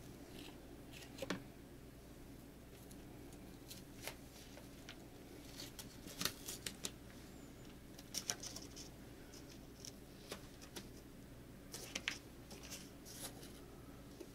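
Light scattered clicks and rustles of hand work, a sharp tick every second or two, over a faint steady room hum.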